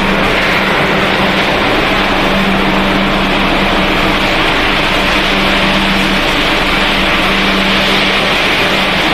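Snack pellet production line machinery running: steady mechanical noise with a low hum underneath, as the extruded pellets are conveyed and tipped from one conveyor onto another.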